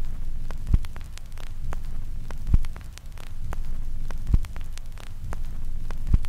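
Old-film crackle effect: steady hiss and low hum with scattered sharp clicks and a low thump about every two seconds.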